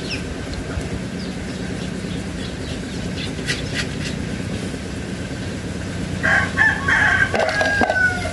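A rooster crowing once, about six seconds in, a single call of about two seconds that ends on a falling note. Earlier, two light clicks of small metal parts being handled.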